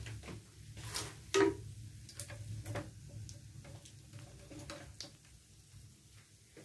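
Scattered light clicks and taps of a spatula against a frying pan full of dried anchovies as they are stirred, the strongest about a second and a half in, over a faint low hum.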